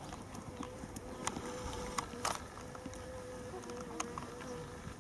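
Faint hoofbeats of a ridden horse moving over a sand arena, with a few sharp clicks, and a thin steady hum in the background.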